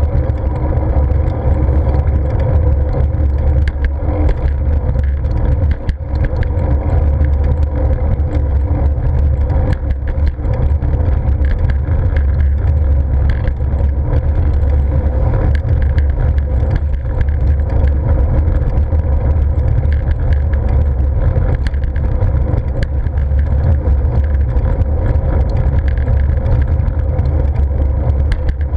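Wind rushing over a bike-mounted action camera's microphone, with tyre and road noise from a bicycle rolling along: a steady, heavy low rumble.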